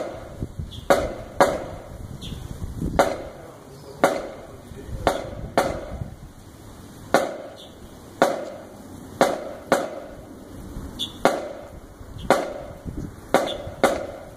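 Marching band percussion beating time, with no melody: single sharp strikes about one a second, now and then a quick pair, each with a short ring.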